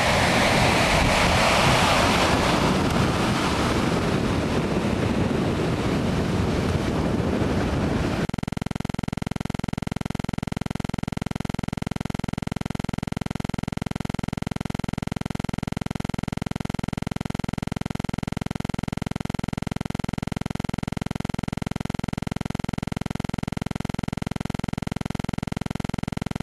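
Small waves breaking in the surf, with wind buffeting the microphone, for about eight seconds; then the sound cuts off suddenly and gives way to a steady, unchanging hum.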